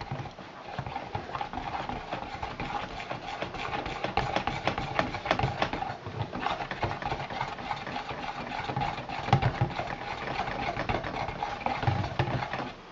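Hand-held stick blender running in a bowl of cold-process soap batter: a steady motor hum with rapid splashing and clicking as the blade churns the oils and lye to emulsify them. It switches off near the end.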